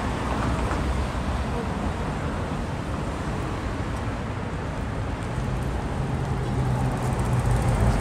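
Street ambience of road traffic running with a low rumble, mixed with indistinct voices of passers-by; a steady low engine-like hum comes in about halfway through.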